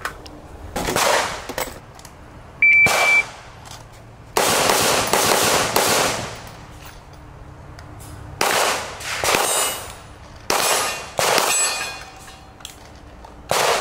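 Single gunshots from a rifle and handgun, about eight, fired at uneven intervals, each followed by a trailing echo. A short high beep sounds about three seconds in.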